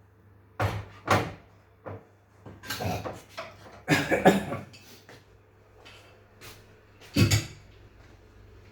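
Handling noises from TV parts being worked on: a string of separate knocks and clatters, the loudest about four seconds in and another sharp one near the end, over a low steady hum.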